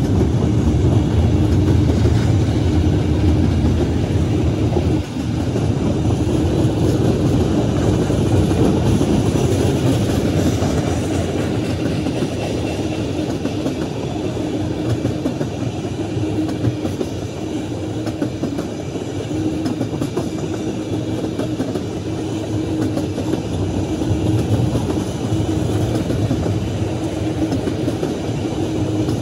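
Freight train of autorack and tank cars rolling past: a steady loud rumble of steel wheels on the rails, with a steady hum running underneath.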